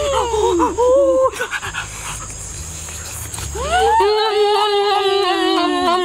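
A boy's voice making short wordless exclamations. Then, from near the middle, a long drawn-out wavering vocal sound that slowly sags in pitch.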